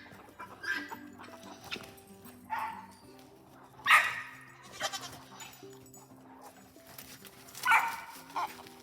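Nigerian Dwarf goats bleating several times, loudest about four seconds in and again near the end, over background music.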